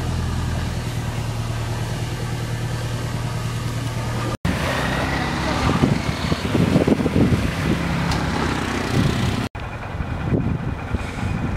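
Motor vehicle engine running, heard across three clips cut together: first a steady low hum, then a rougher, uneven rumble after the cuts.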